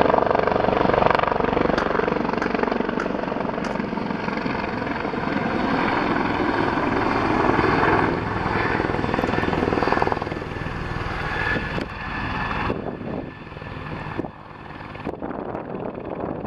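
Firefighting helicopter flying overhead, its rotor and turbine running loud and steady. About two-thirds of the way in the sound drops suddenly and becomes quieter and duller.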